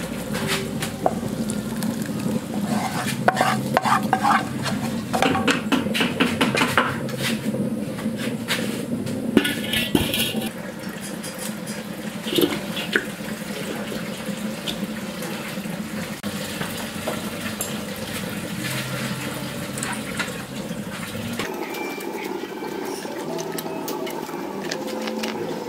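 Spatula scraping and knocking against a metal pan as thick sauce is stirred, with pots and utensils clattering and some wet, liquid sounds. The clatter is busiest over the first ten seconds and then settles into quieter handling.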